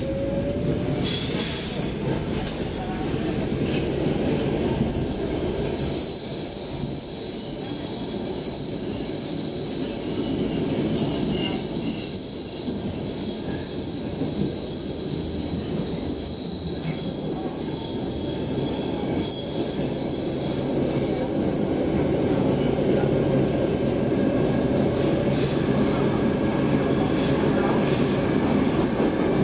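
Stockholm Metro C6 subway car running through a tunnel, heard from inside the car: a steady rumble of wheels on rail. From about five seconds in, a high, steady wheel squeal holds for some fifteen seconds, then stops.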